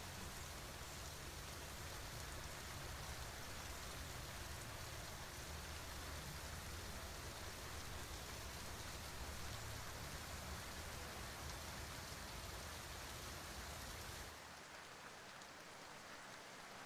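Steady rain falling, an even hiss of drops. About fourteen seconds in, the deep rumble and the highest hiss drop out abruptly and it goes a little quieter.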